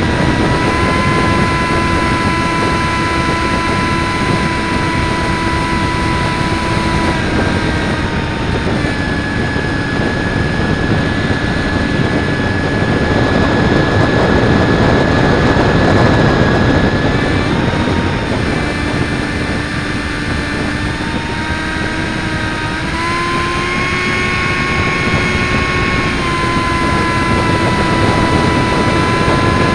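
RC Zephyr V-70 model plane in flight, heard from a camera on its wing: the motor gives a steady whine that steps down and back up in pitch a few times as the throttle changes. Wind rushes over the airframe and microphone the whole time, swelling about halfway through.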